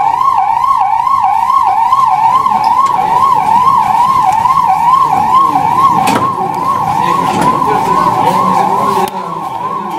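Ambulance siren on a fast up-and-down wail, about three sweeps a second, a little quieter in the last second. Clatter from the stretcher being handled comes in under it in the second half.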